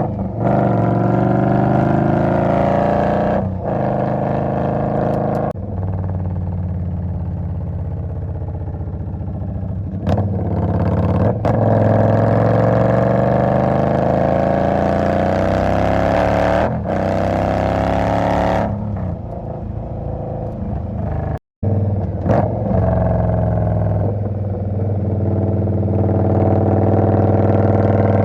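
Indian Scout motorcycle's V-twin engine running, its note rising and falling steadily with several brief dips, and cutting out for an instant about two-thirds of the way through.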